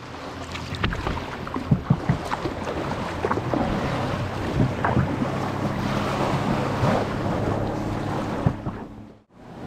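Small waves washing and wind buffeting the microphone, with scattered sharp knocks and clicks, over a faint low steady hum.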